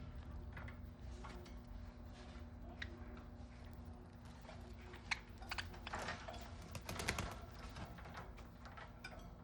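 Scattered light clicks and taps, with a busier cluster about five to seven seconds in, over a steady low hum: pet birds moving about their cage, on perches and toys.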